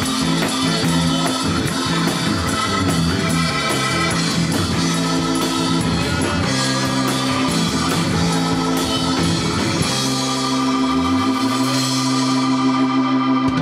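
Live rock band playing an instrumental passage on drum kit, electric guitars and bass. Near the end the drumming drops away and the band holds a long final chord while a low note slides up into it.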